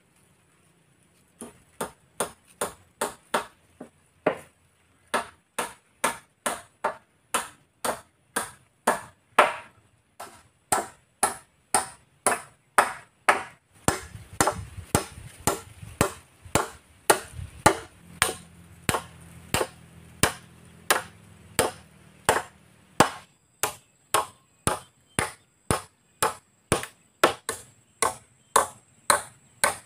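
Hammer blows on a wooden log frame, a steady run of sharp strikes about two a second, starting about a second and a half in.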